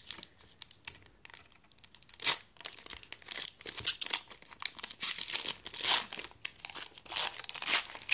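Foil wrapper of a Yu-Gi-Oh booster pack being torn open and peeled apart by hand: irregular crinkling and tearing, with sharper louder bursts a couple of seconds in and again over the last three seconds.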